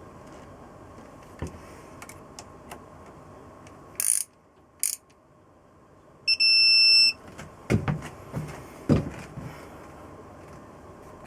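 Workbench sounds: scattered light clicks and two short hisses, then a steady electronic beep lasting just under a second, followed by a few knocks of metal tools or parts being handled.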